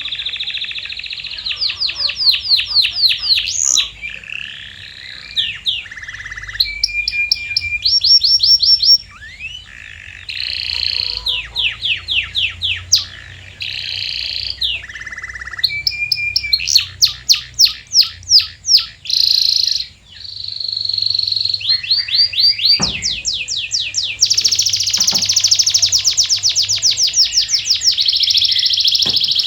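Domestic canary singing a long song of high-pitched rapid trills and quick repeated notes, the phrase changing every second or two. It is a training or lure song meant to set other canaries singing.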